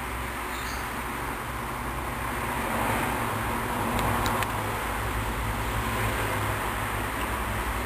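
Hoover Dynamic Wash front-loading washing machine running steadily in the wash phase of its cycle, the motor turning the drum and load with a low hum, and a couple of light clicks about four seconds in.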